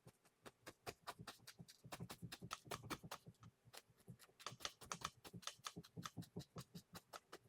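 Oil-paint brush tapping paint onto a canvas in a fast, uneven run of faint taps, several a second, stippling in evergreen trees.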